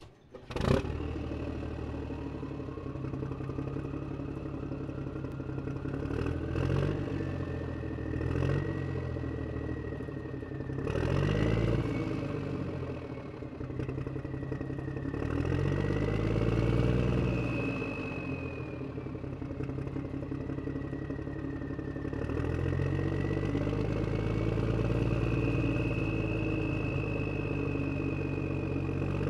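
A vehicle engine running, its pitch swelling up and falling back several times like slow revving, with a thin whine above it that glides up and down.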